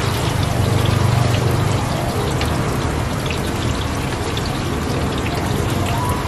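Hot oil sizzling steadily in woks as food deep-fries, with small scattered pops.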